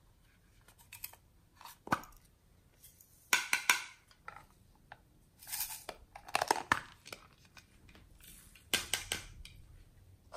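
Small plastic and metal containers being handled and opened by hand: a series of separate clicks, scrapes and rustles, the loudest clusters about three and a half, six and a half and nine seconds in.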